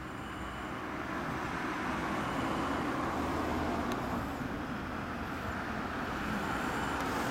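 Yamaha Drag Star 250's air-cooled V-twin running at idle through chrome slash-cut mufflers, a steady low exhaust beat that grows a little louder over the first two seconds.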